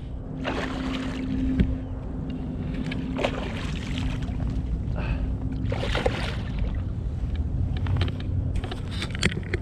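Water splashing and sloshing beside a kayak as a hooked black drum swirls at the surface, in short surges about half a second, three seconds and six seconds in, over a steady low rumble.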